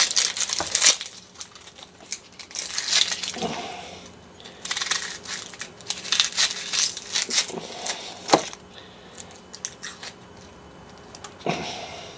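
Dry papery onion skin crackling and tearing as it is peeled and trimmed from an onion with a knife, in irregular rustles with a sharp click about eight seconds in.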